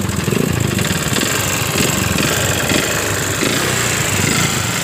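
Yamaha Jupiter MX single-cylinder four-stroke engine running rough, with a fast ticking rattle. The mechanic suspects the top end, the camshaft and rocker arms, with a little from the connecting rod. The engine has run out of oil and burns oil heavily, which suggests worn piston and rings.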